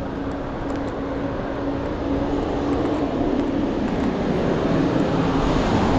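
A vehicle's steady engine hum over a wash of traffic noise, growing gradually louder.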